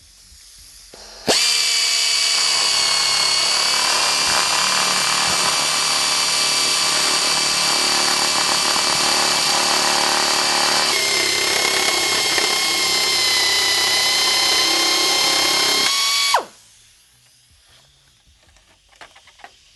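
Pneumatic reciprocating air saw cutting through a plastic grille shell. It starts about a second in, runs with a steady high whine for some fifteen seconds, its tone shifting slightly about eleven seconds in, then stops abruptly.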